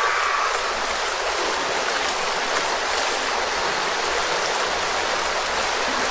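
Steady rushing of flowing stream water, an even hiss with no pauses.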